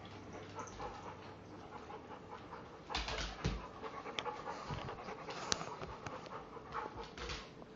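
A dog panting, with scuffling and a few sharp clicks as the dogs move about on a wooden floor, and a louder scuffle about three seconds in.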